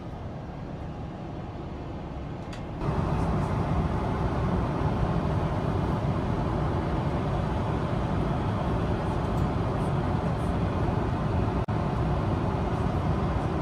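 Steady rushing cabin noise inside a Boeing 777-300ER airliner, which jumps louder and brighter about three seconds in and drops out for a split second near the end.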